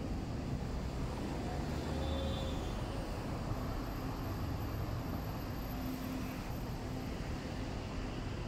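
Steady city street ambience: a constant low rumble of road traffic.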